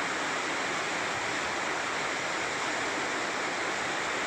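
Water rushing through an open sluice gate at full speed, churning into a concrete channel, with a steady, unbroken rushing noise.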